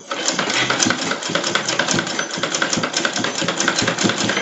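Manual sewing machine stitching at speed, a rapid, even clatter of needle strokes with a steady mechanical hum beneath, sewing across the end of a buttonhole to close it off.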